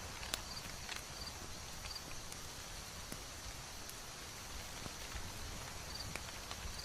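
Ambient bed of a crackling wood fire: a steady soft hiss with scattered sharp pops every second or so, under a low rumble and a few faint short high chirps.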